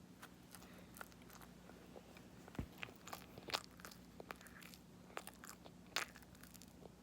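A person chewing cream bread close to the microphone: scattered soft mouth clicks and smacks, the loudest about two and a half, three and a half and six seconds in, over a faint steady low hum.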